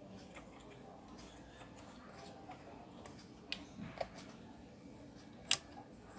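Faint clicks and taps of a wire and its insulation sleeve being worked onto a terminal inside a metal voltage-regulator chassis, with one sharp, loud click about five and a half seconds in.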